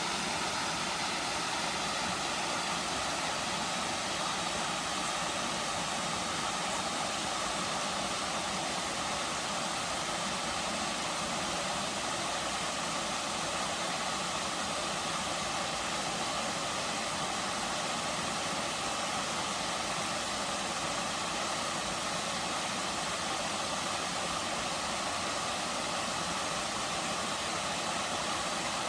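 Waterfall: water falling steadily, an even, unbroken hiss.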